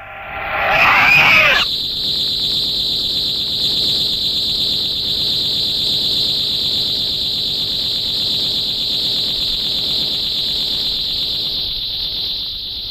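Tokusatsu electronic sound effect: a short warbling, wavering sound, then a long steady high-pitched whine that fades out near the end.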